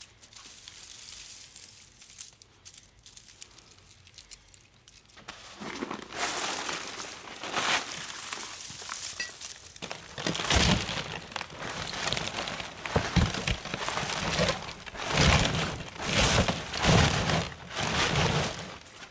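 Loose copper windings from scrapped electric motors being picked through and handled: irregular crinkling, rattling bursts of wire that begin about five seconds in, after a quiet start.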